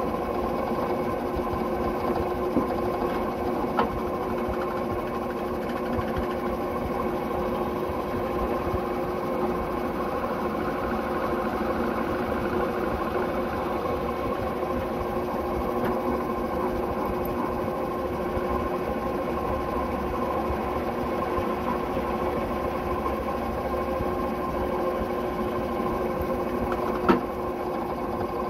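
Drill press motor running steadily while pilot holes are drilled through a metal hinge bracket. A few sharp clicks, the loudest near the end.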